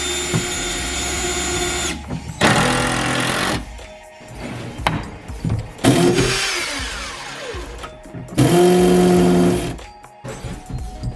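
Cordless drill running in four short bursts of one to two seconds each, driving screws into wood; after the third burst the motor winds down with a falling whine.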